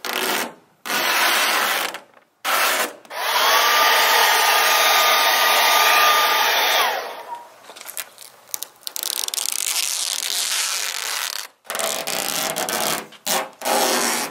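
Vinyl wrap film being rubbed and smoothed onto a truck's bed side: several short hissing, rubbing sweeps. In the middle, a steady hissing blast of about four seconds carries a motor whine that rises as it starts and stops suddenly.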